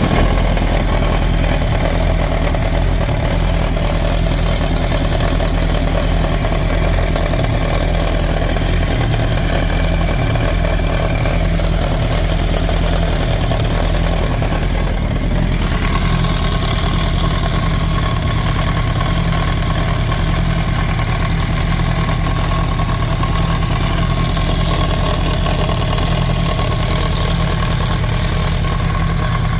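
2007 Yamaha R1's inline-four engine idling steadily with a rattling, grinding noise whose cause is unknown. About halfway through, a steady higher whine comes in and holds.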